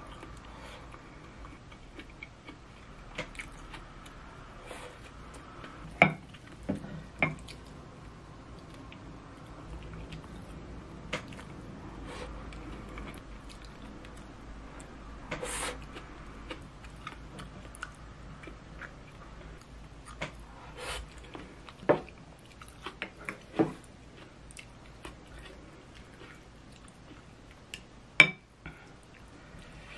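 Mealtime eating sounds: quiet chewing of braised tofu and rice, with chopsticks and a spoon clicking against a ceramic plate and rice bowl every few seconds.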